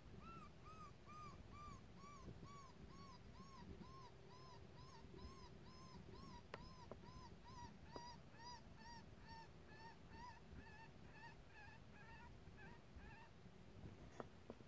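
A faint, regular run of high whimpering yelps from a coyote, about four a second, each note a short rise and fall in pitch. The yelps stop about a second before the end.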